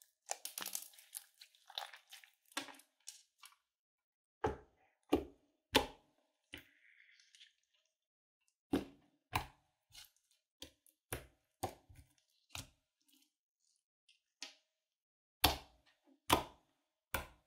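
Glittery slime with beads in it being squeezed and pressed flat by hand: a crackly run of small pops for the first two seconds, then single sharp pops and squelches in groups of two or three, about half a second apart, as trapped air bursts under the fingers.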